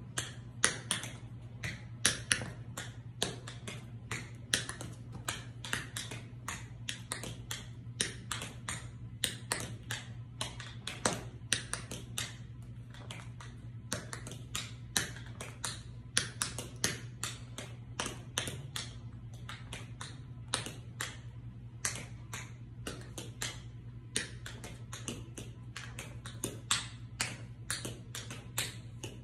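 Tap dancing: the metal taps of patent-leather tap shoes striking a hard tiled floor in quick, uneven runs of sharp clicks, several a second. A steady low hum runs underneath.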